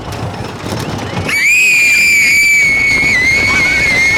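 One long, high-pitched scream from a roller-coaster rider, starting about a second and a half in and held at a nearly steady pitch for about three seconds, over a steady rushing noise.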